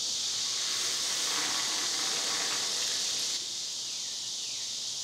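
Cicadas chorusing: a steady, high-pitched buzzing hiss that drops a little in level past the halfway mark.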